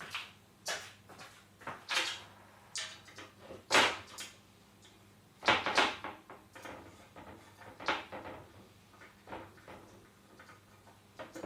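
Irregular clinks, knocks and scrapes of metal parts and hand tools being handled during assembly, with the loudest knocks about four and six seconds in, over a low steady electrical hum.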